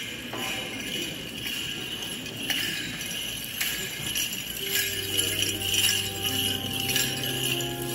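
Small metal bells jingling continuously, as shaken on Armenian liturgical fans (keshotz) during a procession. About halfway through, a hymn with long held notes begins underneath.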